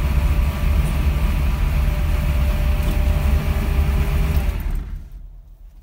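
1965 Dodge Coronet altered-wheelbase car's engine idling steadily with a deep, even sound, still warming up from a cold start, then switched off with the key near the end, the sound dying away over about a second.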